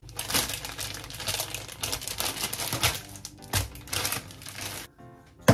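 Plastic packaging bags crinkling and rustling as they are handled and set down on a counter. The crinkling stops near the end.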